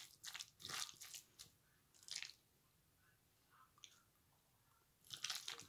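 Faint, soft squishing of a fork working through mayonnaise-dressed shredded chicken in a glass bowl: a few strokes over the first two seconds, a quiet gap, then more strokes near the end.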